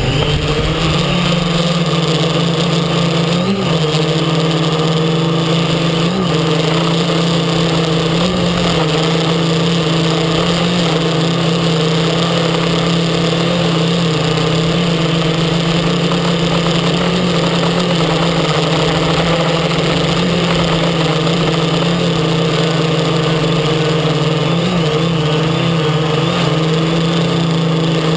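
X650 quadcopter's brushless motors and propellers running, a steady hum with small wobbles in pitch as the throttle shifts, reaching full speed right at the start. Heard from the GoPro carried on the craft.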